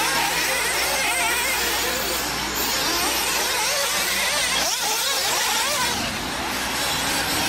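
Several radio-controlled 1/8-scale nitro off-road buggies racing, their small engines running at high revs and rising and falling in pitch as they accelerate and back off, overlapping one another.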